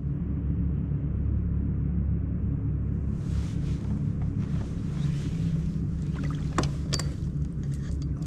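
Steady low rumble of a fishing kayak underway on the water, with a hiss coming in about three seconds in and two sharp clicks near the end.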